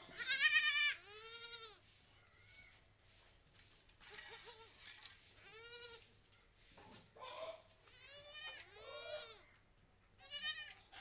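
Young goat kid bleating repeatedly while held by the muzzle, about six short calls, the loudest and longest right at the start and a cluster of them near the end.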